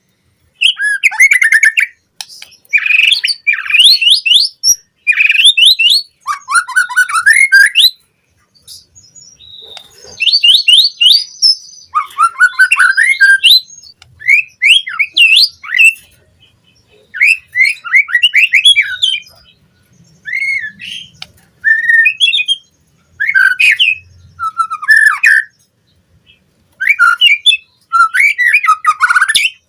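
White-rumped shama (murai batu) singing loud phrases of rapid whistled and chattering notes, each phrase about a second long with short pauses between. It is a varied song full of mimicked calls.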